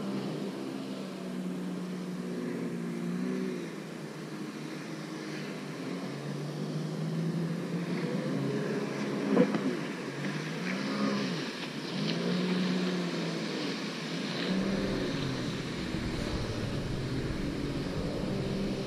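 Boat outboard motor running under way, its pitch rising and falling unevenly as the revs change. There is one sharp knock about halfway through.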